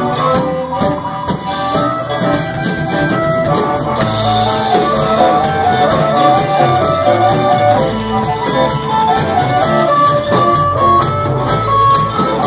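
Live electric blues band playing an instrumental passage: an amplified blues harmonica plays a moving melody over electric guitars, electric bass and a drum kit keeping a steady beat on the cymbals.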